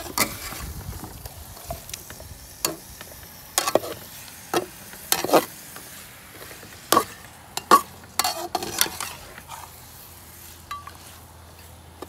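A long-handled metal spatula scrapes and knocks against a large metal pan while stirring chunks of beef, with irregular clinks, over a light sizzle of the meat frying.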